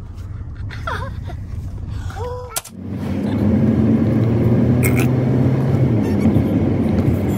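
Road noise and engine hum heard from inside a moving car: a steady low drone that starts abruptly about two and a half seconds in, with a single brief click about five seconds in. Before it, a few faint snatches of voice.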